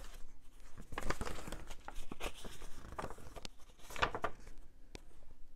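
Paper rustling and crinkling as a folded CD insert is opened out by hand, in several short rustles, the strongest about four seconds in.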